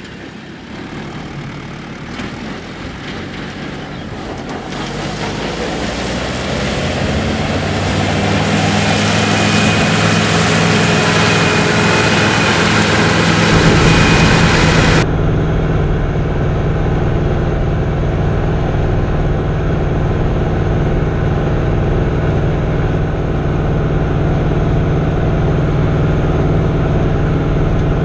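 Fiatagri 88-94 tractor's 3.9-litre turbo diesel engine working under load while driving a BCS Neva R8 disc mower through grass. At first it is heard from outside and grows louder over the first several seconds. About halfway through it switches to the view inside the cab, where it becomes a steady, muffled engine drone.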